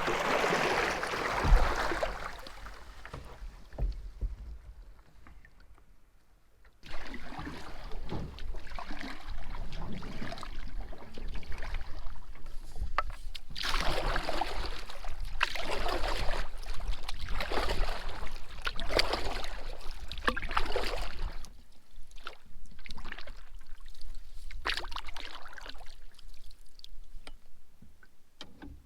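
Water splashing and sloshing from a canoe being paddled, coming in surges of a few seconds.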